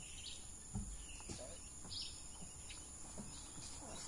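Outdoor ambience: a steady high insect buzz with a few short bird chirps, and a dull thud about a second in.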